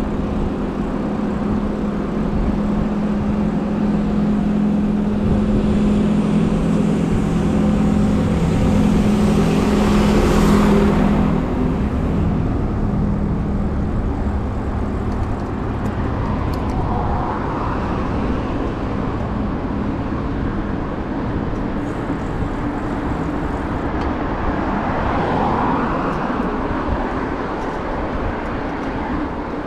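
Road traffic heard from a bicycle: a vehicle's steady engine hum that swells and stops about eleven seconds in, then a continuous traffic rush with cars going by.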